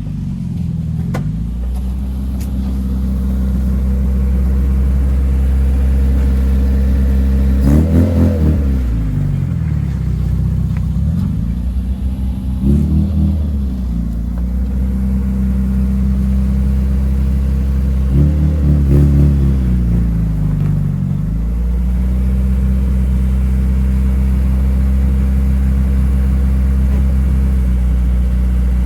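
The Mitsubishi Mirage's engine is idling steadily and is revved up and back down three times, the last time for longer. The car is warming up after sitting unstarted for about two weeks.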